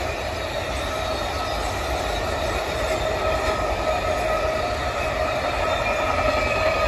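Freight train of sliding-wall wagons rolling past, a steady low rumble with a sustained high squeal from the wheels.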